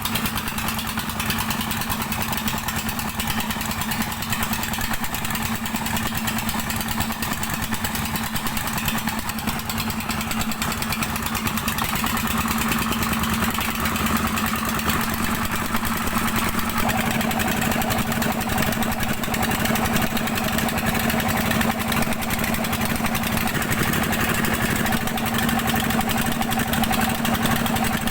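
Dompeng single-cylinder diesel engine of a gold-mining pump rig running steadily, over a constant hiss.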